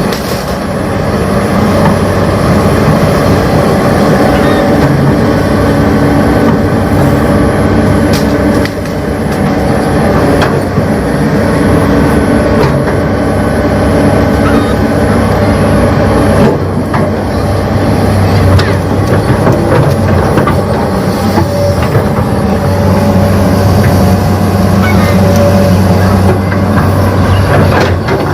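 Radio-controlled Hitachi model excavator running: a steady mechanical whine from its motors and hydraulic pump, with scattered small clicks and scrapes as it works the ground.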